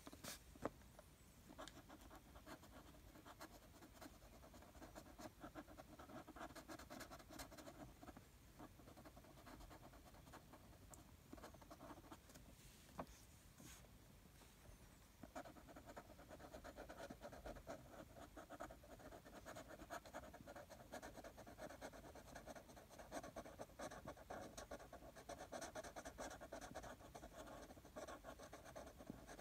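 Felt-tip marker scratching on paper in quick, short back-and-forth colouring strokes, getting louder and busier about halfway through. A sharp tap about a second in.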